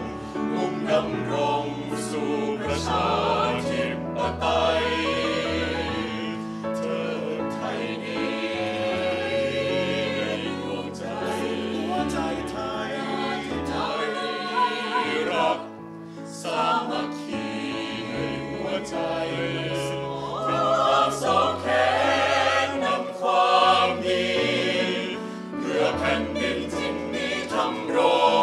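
Mixed choir of men's and women's voices singing in harmony, with a short breath break about halfway through.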